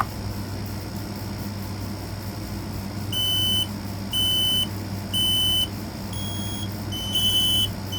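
Kidde i12010S smoke alarm set off by its test button. About three seconds in it starts sounding short, high half-second beeps, roughly one a second. About six seconds in a second interconnected smoke alarm with a slightly higher beep joins, and the two sound out of step over a low steady hum.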